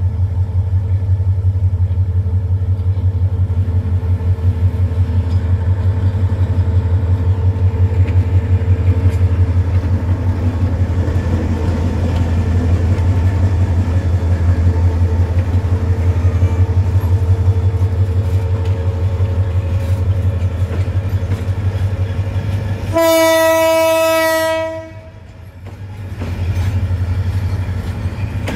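Diesel locomotive hauling an oil tanker train out of the station, its engine running with a steady low throb as it pulls slowly past. Near the end, one loud horn blast lasts about two seconds.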